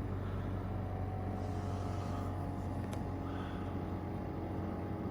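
EcoFlow Wave 2 portable air conditioner running with a steady hum, a thin whine joining in about a second in. A faint click near the middle.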